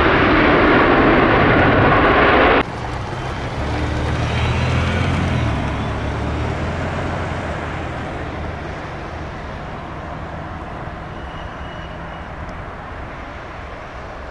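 Loud jet airliner engine noise that cuts off suddenly about two and a half seconds in, followed by a quieter low jet rumble that swells briefly and then slowly fades as the aircraft moves away.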